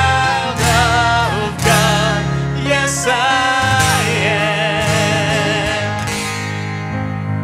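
Worship music played live: a singing voice with vibrato over guitar and steady bass notes.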